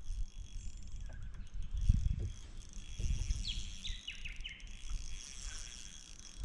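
Wind rumbling on the microphone, with a gust about two seconds in. A bird calls a short run of falling notes a little past the middle, over a faint high insect hum.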